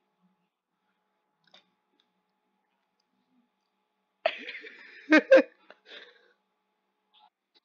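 A person's voice bursts out about four seconds in: a sudden breathy sound, then two short, loud bursts in quick succession and a fainter one after.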